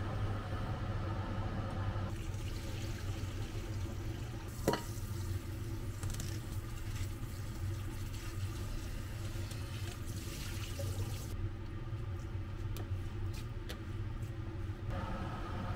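Kitchen tap running into a frying pan as blanched bean sprouts are rinsed in cold water, with one sharp clank about five seconds in. The running water stops after about eleven seconds and is followed by a few light clicks and knocks, over a steady low hum.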